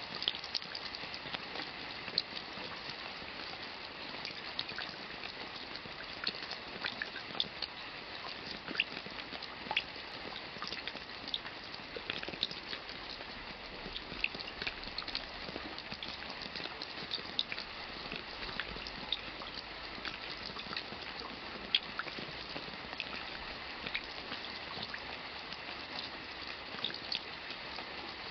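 Steady rain falling, with many individual drops tapping and splashing at irregular moments over an even patter.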